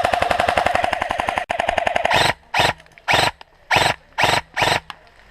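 Airsoft rifle firing on full auto: a long burst of about two seconds, the rapid shots carrying a steady motor-gearbox whine. It is followed by five or six short bursts about half a second apart.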